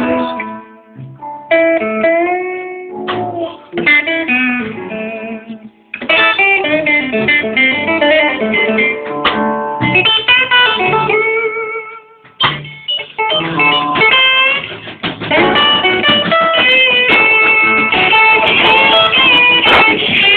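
Live blues electric guitar solo: held notes bent and shaken with vibrato, broken by short pauses in the first few seconds. From about six seconds in the playing grows fuller and more continuous.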